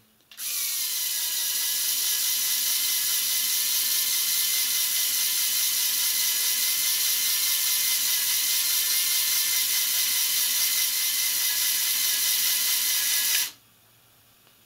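Lego Technic electric winch running under load, its motor and gear train whining steadily as it reels in cable dragging three Lego battery boxes across carpet. Its pitch settles slightly lower in the first second, then holds steady until it cuts off suddenly about a second before the end.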